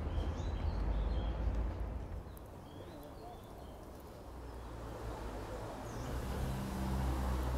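A low rumble with faint, short bird chirps over it in the first few seconds. The rumble grows again near the end, with a low steady hum joining it.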